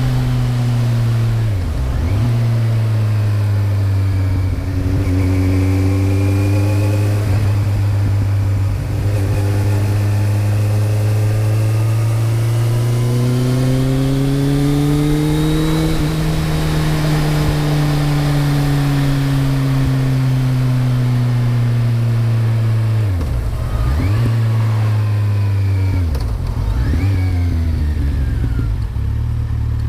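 Kawasaki Z1000's inline-four engine running through a Mivv GP exhaust with the dB killer fitted. Its pitch climbs slowly and falls away again, broken by a few quick sharp drops and recoveries in revs.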